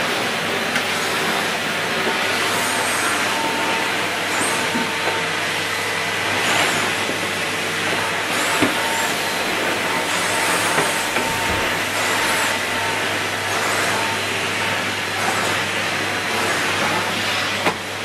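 Numatic Henry 160 canister vacuum cleaner running steadily while its floor tool is pushed back and forth over carpet, with a couple of light knocks from the tool.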